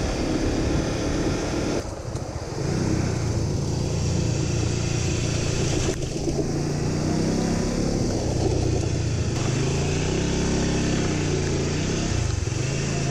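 Small motorcycle engine running under way, its pitch rising and falling as the rider speeds up and eases off on a rough dirt track.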